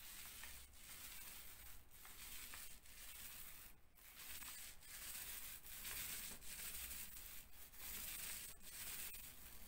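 Small paint roller rolling emulsion onto a plasterboard wall: a faint, hissy rubbing in repeated strokes, broken by short pauses between strokes.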